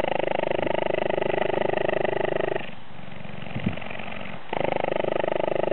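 Cheetah purring while its head is stroked: a fast, even, pulsing purr that softens for about two seconds midway, then comes back at full strength.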